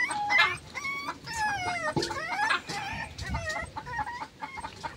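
Short, high-pitched animal calls repeated throughout, coming quicker and shorter near the end.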